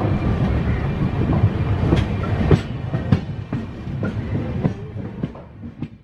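Passenger train running on the track: a steady rumble of the coaches with many sharp wheel clacks over rail joints. The sound grows quieter over the last few seconds and has nearly died away by the end.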